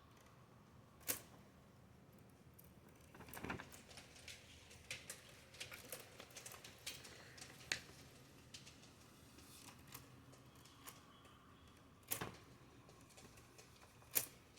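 Typewriter keys struck one at a time at irregular intervals: scattered clacks with long gaps, a small cluster about three and a half seconds in, and single louder strikes about a second in and near the end.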